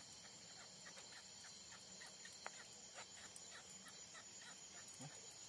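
Faint night-time insect chorus: a steady high buzz with short chirps repeating several times a second, and a single sharp click about two and a half seconds in.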